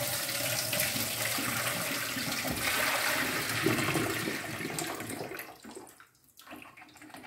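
Rinse water pouring from a tilted ceramic bowl past a plate held over its mouth, splashing into a stainless steel sink as the peeled peaches are drained. The stream runs steadily for about five seconds, then thins to a trickle and stops.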